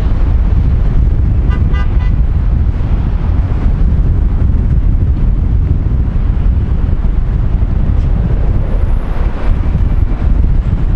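Jet engines of a departing Airbus A320-family airliner at climb thrust: a steady, loud low rumble as it climbs away.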